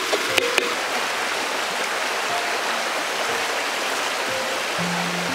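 Shallow stream running over rocks: a steady, even rush of water, with a couple of brief clicks about half a second in.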